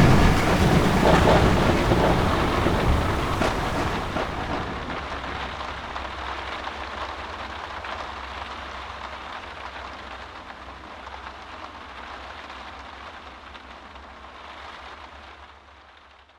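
Rain falling steadily, a dense hiss with a low rumble of thunder underneath, slowly fading out until it dies away at the end.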